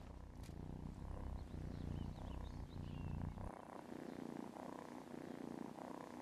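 Silver tabby cat purring: a low, rhythmic rumble that turns softer about halfway through.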